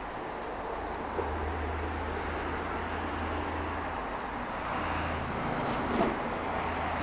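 Steady low rumble of outdoor background noise, with faint, short, high chirps repeating and a single short knock about six seconds in.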